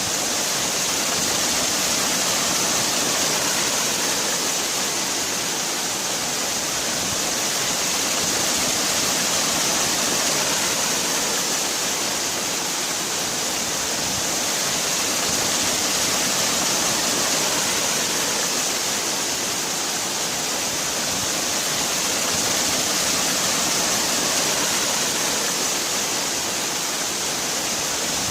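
Waterfall rushing: a steady, even hiss of falling water with slow, gentle swells in loudness.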